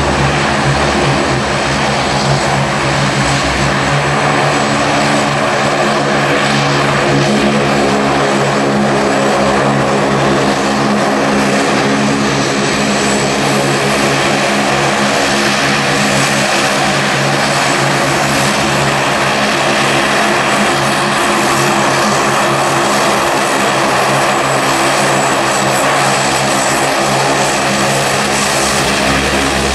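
Twin-engine turboprop airliners taxiing, their engines and propellers giving a steady drone with a hum of several even engine tones.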